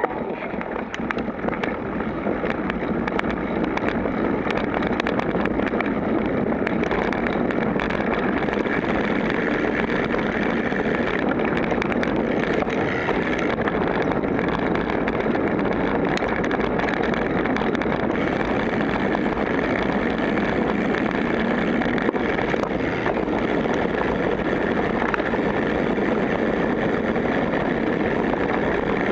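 Mountain bike rolling fast down a dirt singletrack: steady rush of wind on the bike-mounted microphone, with the bike rattling and clicking over the rough trail.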